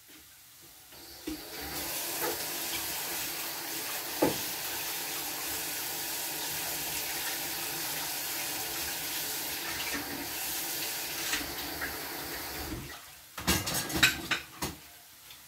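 Kitchen tap running steadily into a sink while dishes are washed; the water shuts off near the end, followed by a few quick clatters of dishes being set down.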